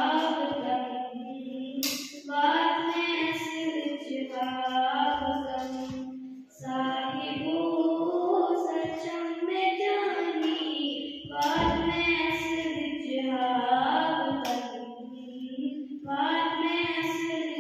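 A girl singing solo into a microphone, held melodic phrases with short breaks for breath between them.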